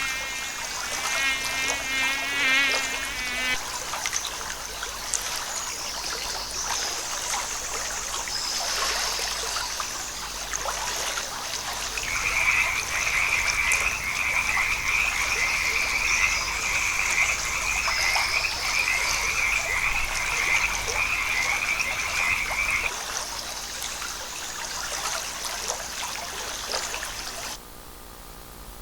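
Frogs calling over a steady high background chorus. A long, fast-pulsing trill starts about twelve seconds in and runs for about ten seconds. The sound drops away abruptly near the end.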